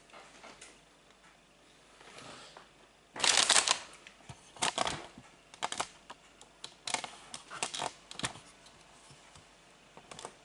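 Brown kraft paper bag being handled and crumpled: rustling and crinkling, loudest about three seconds in, then shorter rustles roughly every second.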